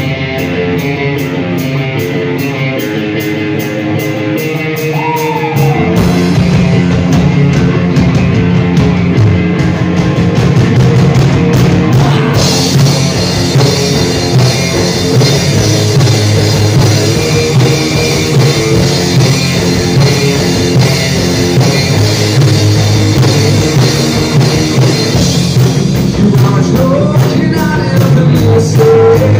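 Live rock band playing a song: electric guitar alone at first, then bass and drums come in about six seconds in, and crashing cymbals join at about twelve seconds.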